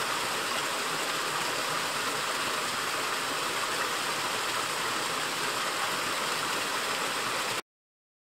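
Water pouring down a small waterfall-like step in a mountain stream, a steady rushing and splashing that cuts off suddenly near the end.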